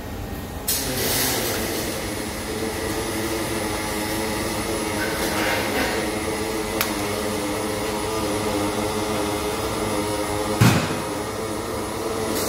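Welding arc running in one continuous bead: a steady hiss with a hum, starting suddenly just under a second in and cutting off near the end. A sharp click comes about halfway through, and a louder pop a couple of seconds before it stops.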